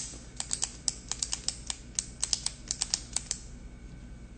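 A quick, irregular run of light, sharp taps or clicks, like typing, about twenty of them over three seconds before they stop.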